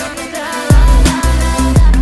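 Electronic music with deep sustained bass notes and a steady drum beat.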